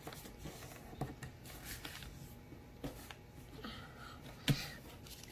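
A sheet of A4 paper being folded by hand: faint rustles and soft taps as a corner is folded over and the crease pressed flat, with one sharper tap about four and a half seconds in.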